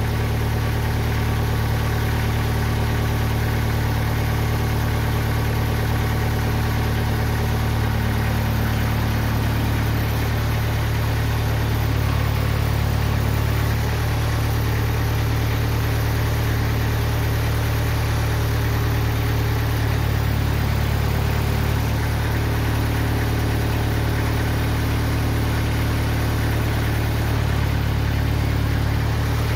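Engine of a TimberKing 2020 portable band sawmill running steadily, not cutting: an even, unbroken low hum.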